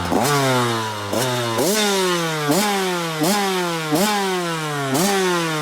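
2012 KTM SX 85's two-stroke single-cylinder engine revved in repeated throttle blips, about eight, each rising sharply in pitch and then falling back slowly. It is running on a freshly fitted new spark plug after an oily, worn-out plug had kept it from reaching high revs.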